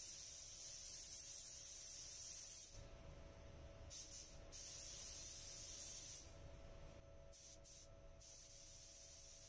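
A compressed-air paint spray gun hissing as silver basecoat is sprayed. The spray starts and stops in passes, cutting out for about two seconds a few seconds in and breaking up again near the end.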